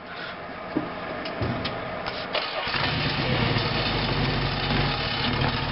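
Chrysler 318 V8 engine starting: a few seconds of cranking noise with sharp clicks, then it catches about two and a half seconds in and settles into a steady idle.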